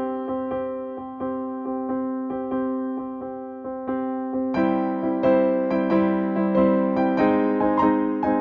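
Background music: an electric piano playing steady repeated notes, growing fuller about halfway through.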